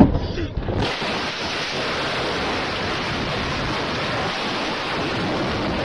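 Storm noise inside a truck cab: a loud, steady rush of wind-driven rain and debris against the windshield and body, starting abruptly about a second in and holding steady as the view outside is blanked out.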